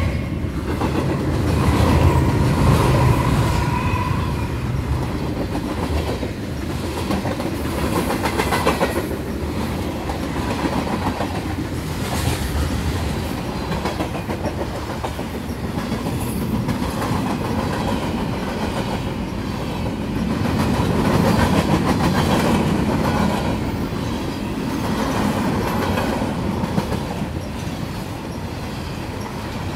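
Loaded freight cars of a CN freight train, covered hoppers and then tank cars, rolling past close by: a loud, steady rumble with steel wheels clacking over rail joints, and a brief thin whine about two seconds in.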